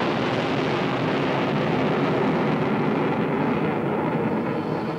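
Twin J79 turbojets of a US Navy McDonnell F-4 Phantom II at full power during a carrier take-off: loud, steady jet noise that slowly fades near the end as the aircraft climbs away.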